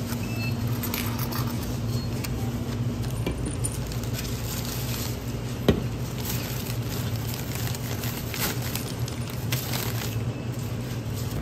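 Light clinks and rattles of small hard objects over a steady low hum, with one sharp click a little past the middle.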